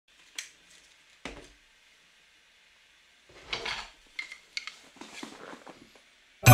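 A few light clinks and knocks of hard objects, sparse and irregular, in short clusters. Music starts right at the end.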